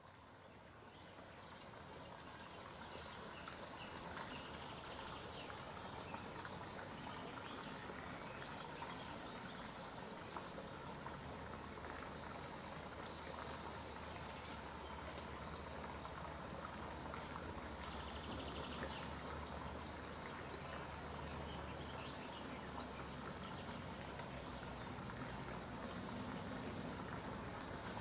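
Woodland ambience: small songbirds giving short, high chirps again and again, over a steady background hiss and low hum. It fades in over the first few seconds.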